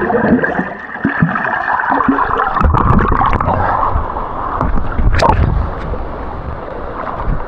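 Water gurgling and churning close to the microphone, with a couple of sharp knocks.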